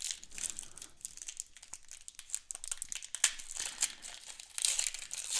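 A plastic trading-card pack wrapper crinkling and tearing as it is pulled open by hand, in a dense run of sharp crackles with a louder burst near the end.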